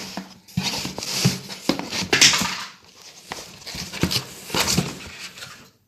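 Packaging for an airsoft pistol being handled and opened, with irregular rustling and a few sharp clicks and knocks. There is a louder rustle about two seconds in, and the sound cuts off suddenly near the end.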